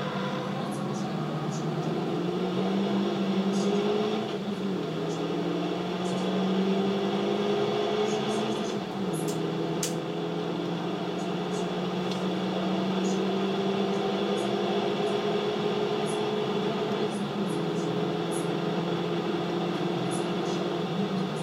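Racing car engine from onboard lap footage, played back through computer speakers and picked up by a camera. The engine pitch climbs slowly under full throttle and drops with upshifts about four, nine and seventeen seconds in.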